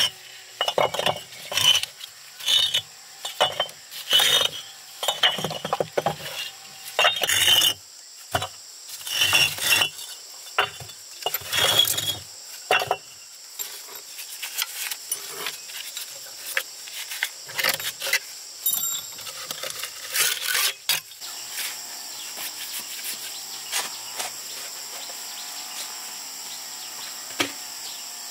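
Short scraping strokes, roughly one a second, for the first dozen seconds, then scattered clicks and knocks that stop about three quarters of the way through. A steady high insect drone runs underneath and is left alone near the end.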